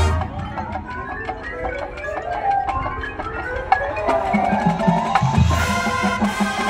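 Marching band playing a field show. The full band drops to a lighter passage carried by mallet percussion (marimbas and other keyboard instruments) with sharp percussion clicks. About four seconds in, the low brass and bass notes come back and fill out the sound.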